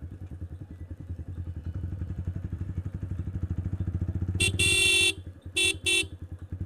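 Yamaha 155 cc single-cylinder motorcycle with a loud full-system exhaust, ticking over at low speed with a steady low putter. A vehicle horn sounds once long, about two-thirds of the way through, then gives two short toots.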